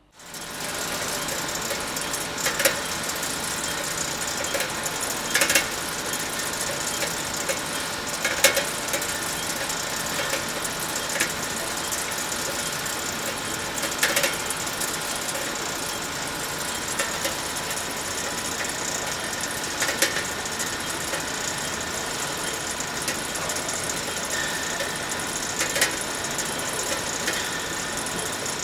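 Factory machinery running steadily with a dense mechanical clatter and a faint steady hum, and a sharp clank about every three seconds.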